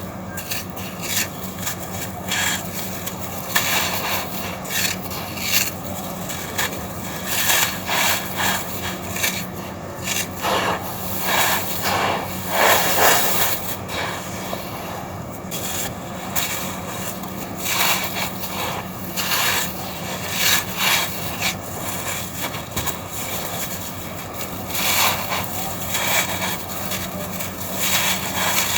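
Dry red sand-cement chunks being crushed and rubbed against a hard floor: gritty scraping and crunching in irregular strokes, with a denser run of strokes near the middle.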